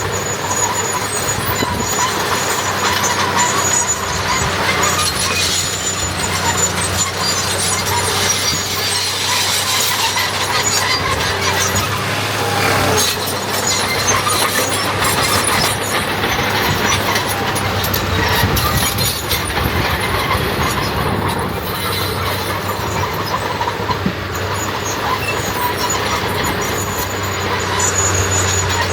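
Heavy diesel earthmoving machinery at work, a D21 bulldozer and dump trucks, engines running with a constant low drone and scattered knocks of metal.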